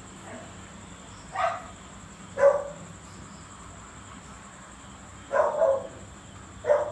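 American bully dog barking in short single barks, five in all, unevenly spaced, with two close together a little past five seconds in.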